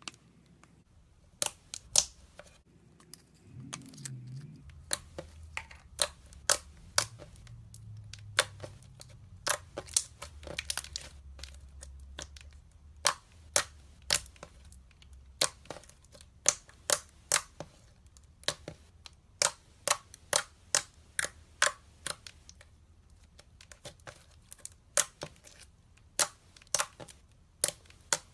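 Slime being squeezed and poked, trapped air pockets popping with sharp, irregular clicks about one or two a second.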